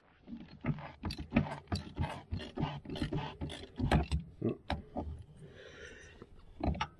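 Half-inch drive ratchet clicking and its socket knocking on a hydraulic pilot filter canister as the filter is worked to break it loose: irregular metal clicks, two or three a second, with a brief rustle near the end.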